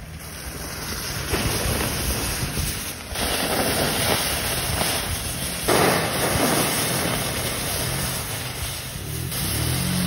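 Water poured from a plastic bottle onto a campfire's hot embers, hissing and sizzling into steam as the fire is put out. The hiss swells in several surges as more water hits the coals.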